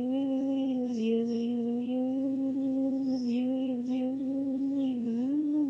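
A voice holding one long, unbroken hum-like note with no words, its pitch nearly steady but starting to wobble up and down near the end.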